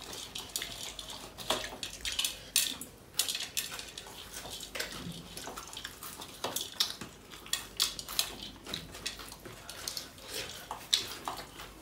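Hand-eating rice and curry from a steel plate: fingers mixing the wet rice and scraping the metal plate, with chewing and lip-smacking, as a string of irregular sticky clicks.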